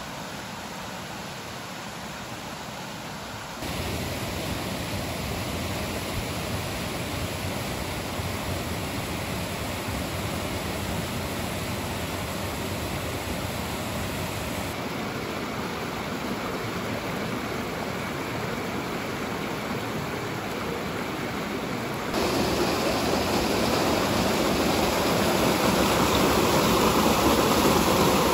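Creek water rushing steadily over small waterfalls and rock cascades. The sound jumps abruptly louder twice, a few seconds in and again about three-quarters of the way through, and is fullest near the end.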